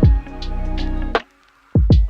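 Background music with a steady electronic beat: deep falling kick drums and sharp hits over held tones, dropping out briefly just past the middle before two kicks come back in.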